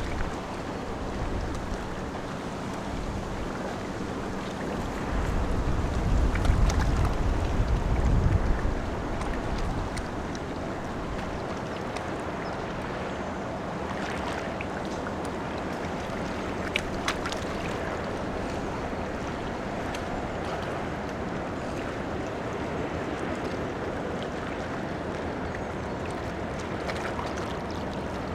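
Large cruise ship passing on a canal: a steady low rumble and rush of water, with wind buffeting the microphone for a few seconds about five seconds in.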